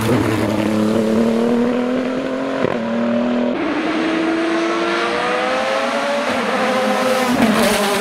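Race car engine accelerating hard, its note climbing steadily in pitch. It is broken by a sharp crack about two and a half seconds in and a short break about a second later, then climbs again.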